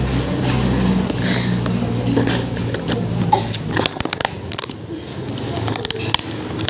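Low steady mechanical hum that fades after about three seconds, with scattered light clicks and clatter over faint background voices.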